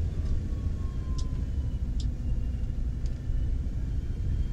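Camper van's engine and road rumble heard from inside the cab while driving slowly, with a few short clicks.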